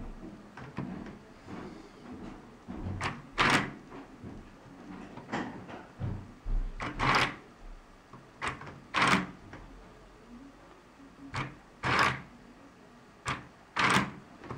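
Motorised LEGO cannon mechanism running, its plastic parts clacking in sharp clicks that mostly come in pairs about half a second apart, every two to three seconds.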